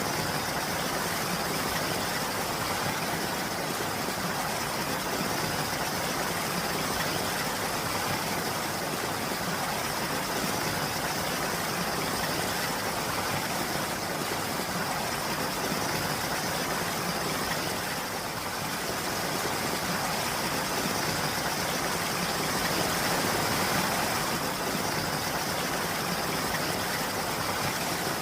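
Steady rain falling, an even hiss that dips slightly about two-thirds of the way through.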